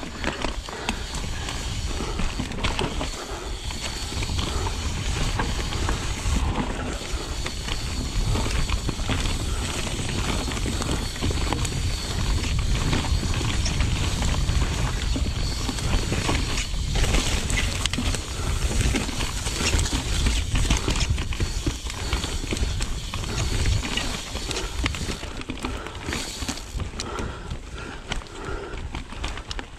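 Devinci Troy 29er mountain bike ridden on a dirt singletrack: tyres rolling over dirt and roots, with many quick knocks and rattles from the chain and frame over bumps. Wind rumbles on the microphone throughout.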